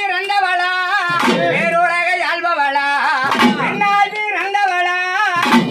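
A man singing a Tamil folk devotional song in long, wavering held notes. Short udukkai hourglass-drum strokes fall between the phrases, about every two seconds.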